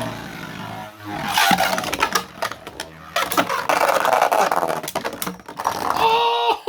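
Two 3D-printed Beyblade spinning tops whirring and clattering in a stadium, with many sharp clicks as they strike each other and the walls. Near the end a steady whine from a spinning top sets in.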